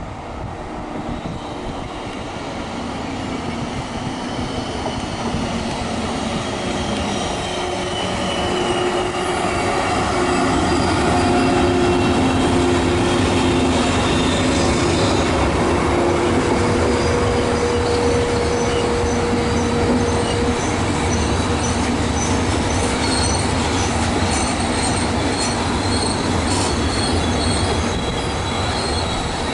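An electric train running through a railway station, growing louder over the first ten seconds and then passing close by, with squealing tones from the wheels over the steady rumble.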